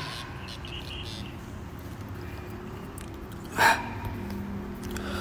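A man's heavy breathing, out of breath, with one sharp gasp about three and a half seconds in.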